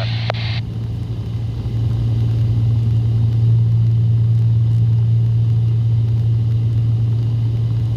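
Steady drone of a Cessna 310's twin flat-six piston engines heard in the cockpit, a constant low hum with the throttles pulled back for a descent.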